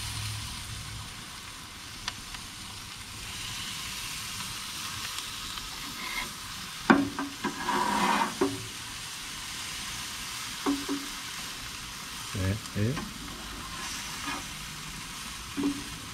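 Chicken and vegetables sizzling steadily on a hot grill, with several short metal clinks of tongs against the grate as onion slices are laid on, the loudest about seven seconds in.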